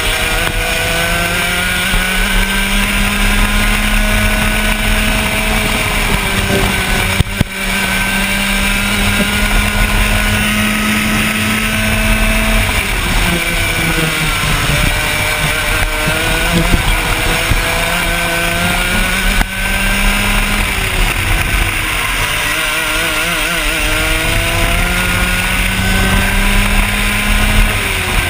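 A kart's 125cc two-stroke engine heard from onboard at racing speed, its pitch climbing on the straights and falling into the corners again and again. The sound briefly drops out twice.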